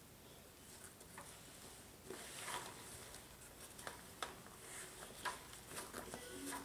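Faint rustling of a child's fabric backpack being handled, with small clicks from the zipper pull as she fumbles to zip it closed. A few sharp ticks come in the second half.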